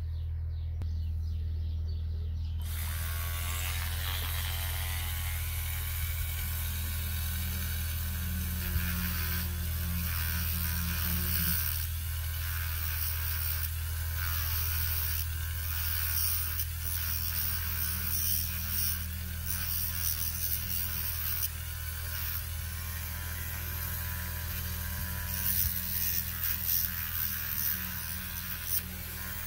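Corded rotary tool running at speed with a steady motor whine, grinding a groove into a small carbon motor brush for a Mercedes auxiliary heater pump. The grinding hiss starts about three seconds in and comes and goes as the brush is pressed to the bit.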